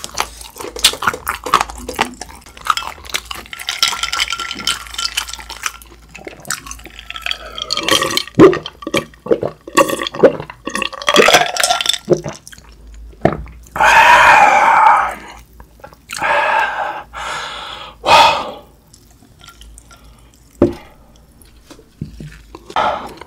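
Close-miked mouth sounds of eating sauced fried chicken: wet chewing and smacking, then gulps of iced cola from a glass. About fourteen seconds in comes a loud burp lasting about a second and a half, with a few shorter mouth sounds after it.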